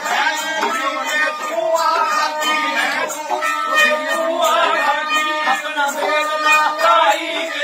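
Live Punjabi folk music: an algoza twin flute and a bowed sarangi play held, droning notes under a singing voice, with a quick, even percussion beat.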